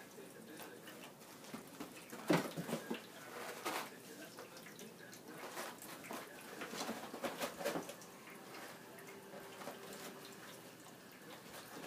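Paper ripping and rustling as a cat claws and bites at a paper roll, in several short rips, the loudest about two seconds in, over the steady trickle of a pet drinking fountain.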